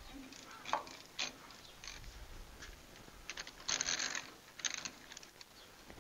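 Ratchet wrench clicking, a few single clicks and then quick runs of clicks about three and a half to five seconds in, as a rusted spark plug that has begun to turn is worked out of a 1924 Fordson Model F's cylinder head.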